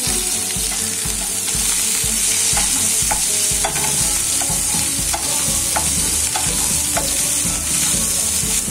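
Sliced onions sizzling in hot oil in a nonstick kadai, with steady hissing and a spatula stirring them and clicking and scraping against the pan now and then.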